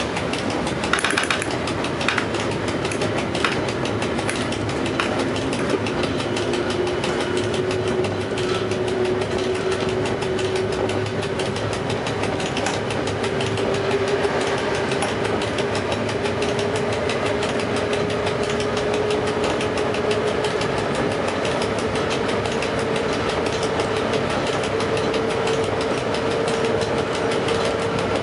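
Inside the cab of an EU07 electric locomotive under way: a steady running rumble of the wheels on the rails, with a few sharp clicks in the first seconds. From about six seconds in, a whine rises slowly in pitch as the train gathers speed.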